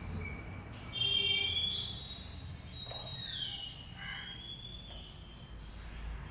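A high-pitched whistling squeal starts about a second in and holds for a few seconds, dipping in pitch midway and rising again before it fades, over a low steady hum.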